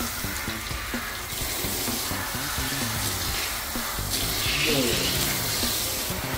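Bathtub hand sprayer running steadily, water spraying and splashing as a Chihuahua's fur is rinsed in the tub.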